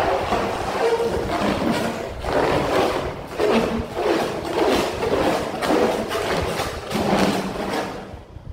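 Inflated white latex balloon rubbing and squeaking under the hands as it is squeezed and twisted into two bulbs, in irregular bursts with short squeaks that ease off near the end.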